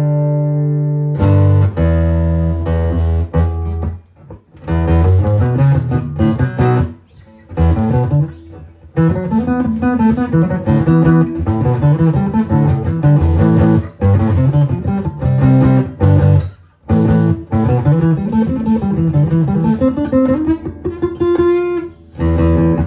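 Acoustic-electric guitar played through an amplifier: picked single notes and chords in runs that rise and fall in pitch, with a few brief pauses between phrases.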